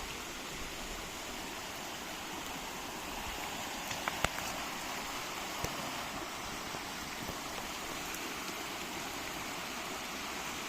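Steady rush of outdoor water noise, with a few faint taps about four seconds in.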